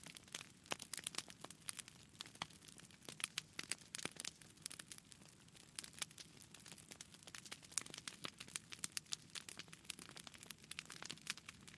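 Fire crackling: a dense, irregular run of sharp pops and snaps, some louder than others.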